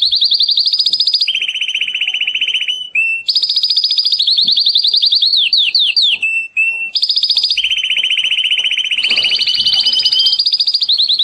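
Male domestic canary in breeding condition singing: fast rolling trills of rapidly repeated notes, switching between a high-pitched trill and a lower one, with a few downward-slurred notes and two brief pauses.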